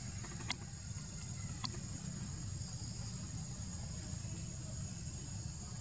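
Forest ambience: a steady high-pitched insect drone over a low steady rumble, with two sharp clicks about half a second and a second and a half in.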